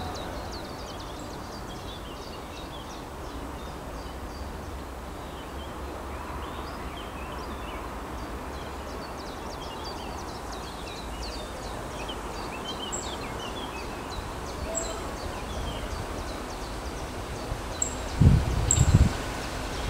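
Small birds chirping over a steady low outdoor rumble as a diesel railcar approaches in the distance, with a few louder low rumbles near the end as it draws nearer.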